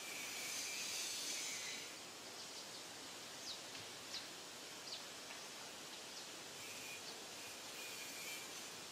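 Outdoor forest ambience: a steady background hiss with a louder high buzzing for about the first two seconds, and a few short, high, falling chirps a few seconds in.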